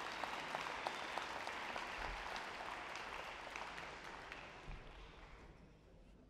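Audience applauding, with the clapping thinning out and fading away over the last couple of seconds.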